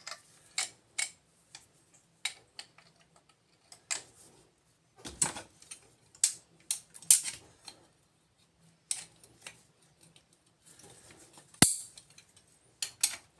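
Scattered clicks and clinks of small pieces of scrap brass being handled and worked on by hand, with a heavier knock about five seconds in and a sharp, louder knock near the end.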